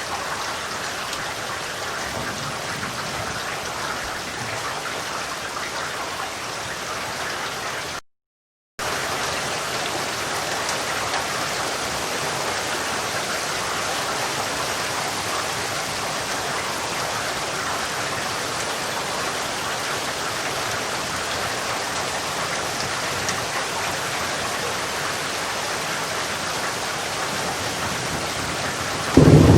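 Steady rain falling, an even hiss of drops. It cuts out completely for under a second about eight seconds in, then comes back slightly louder. A clap of thunder begins right at the end.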